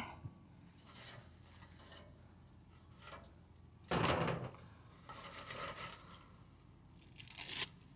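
A few short bursts of rustling and scraping from handling swamp cooler parts, the loudest about four seconds in and another near the end.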